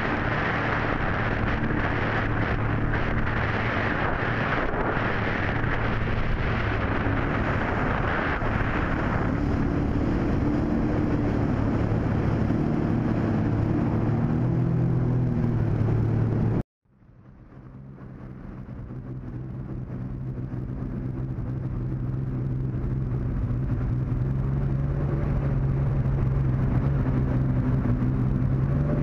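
Motorboat engine running steadily, with wind and water rush. Past the middle the sound cuts out abruptly, then fades back in over several seconds, the engine running again with less wind.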